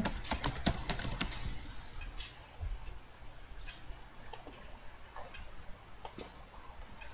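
Computer keyboard typing: a quick run of keystrokes in the first second or so, then a few scattered single clicks that fit mouse clicks on dialog buttons.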